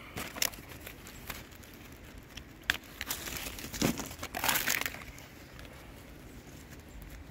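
Dry, dead Japanese knotweed canes crackling and rustling as a hand pushes through them to pick young shoots, with a few sharp snaps and a louder stretch of crackling about four seconds in.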